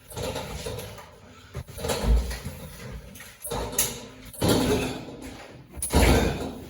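Refrigerator on a hand truck being hauled up stairs: a series of irregular heavy thumps and scrapes as it is lifted and set down step by step.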